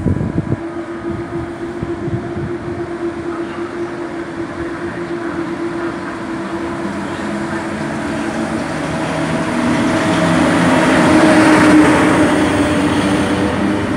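A PKP class EP07 electric locomotive hauling an Intercity passenger train along the platform, with a steady hum and rumble. It grows louder as the locomotive passes close about twelve seconds in, then eases slightly as the carriages roll by.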